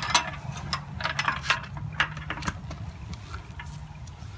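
Light metallic clinks and taps as a steel U-bolt is slid around a galvanized trailer tongue and through a steel mounting bracket: several in the first two and a half seconds, fewer after, over a low steady hum.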